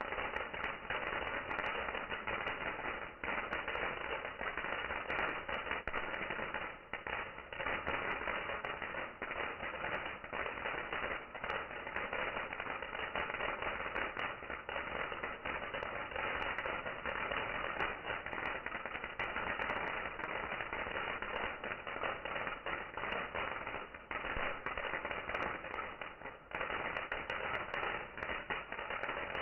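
Dense, continuous crackling and popping: many small sharp cracks packed closely together, with no single big bang standing out.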